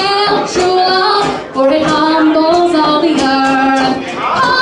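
A woman singing a slow song solo into a microphone, holding long notes and moving from one pitch to the next.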